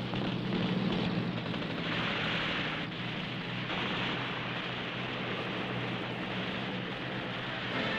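A military vehicle convoy running past as a steady, noisy rumble, with a low engine hum under it in the first couple of seconds. It is heard on a narrow-band old film soundtrack.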